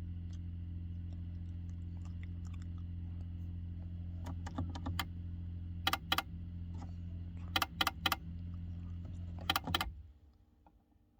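ACL Lifestyle heating programmer/timer giving off a steady electrical buzz in hot water mode, the unwanted noise it is faulted for. A few sharp clicks come in groups from about halfway, and the buzz cuts off near the end.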